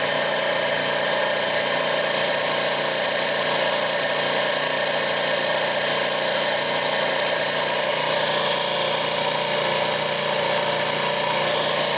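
Motor-driven hydraulic shop press running steadily while its ram presses a U-joint yoke, a continuous even mechanical hum.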